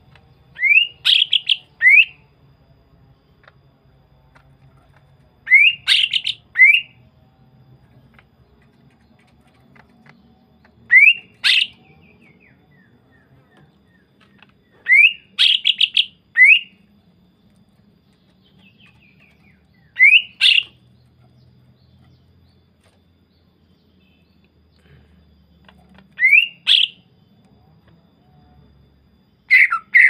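Male green leafbird (cucak ijo) singing short bursts of quick rising whistled notes, about seven phrases each a few seconds apart.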